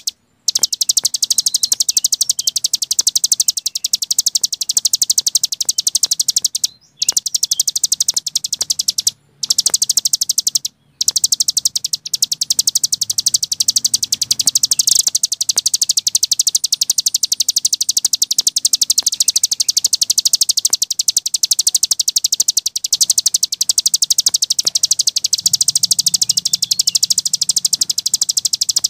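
Cici gunung songbird singing a very fast, continuous high-pitched trill ('ngebren'), broken only by three brief gaps.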